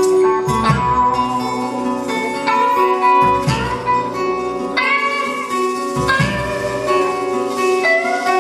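Live band music led by an SG-style electric guitar playing sustained single notes, with a rising bend near the end, over a low accompaniment that drops out briefly a few times.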